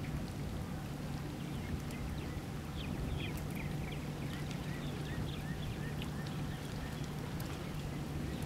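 Osprey chicks chirping: short, thin rising chirps repeated about twice a second from about two seconds in, over a steady low drone.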